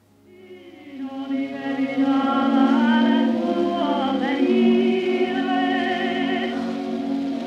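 Operatic music fading in, with long held notes that waver with vibrato.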